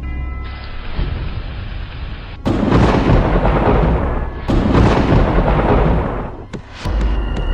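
Thunderstorm sound effect: two long, loud rolls of thunder, one after the other, in the middle of the stretch.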